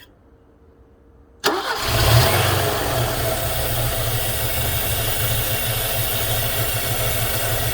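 Mercedes-Benz M102 four-cylinder petrol engine, hot, cranking briefly and catching about a second and a half in. It flares up in revs, then settles into a steady idle.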